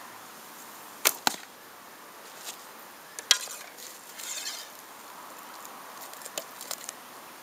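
A Falco Storm traditional bow loosed about a second in: two sharp snaps of the string and arrow close together. Another sharp click follows, then the rustle and light clicks of the next arrow being drawn and nocked on the string.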